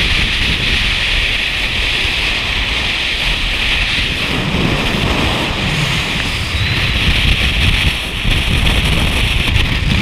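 Wind rushing over a camera microphone held outside a moving car, with the car's road and engine rumble underneath. It is loud and steady, and the low rumble swells a little partway through.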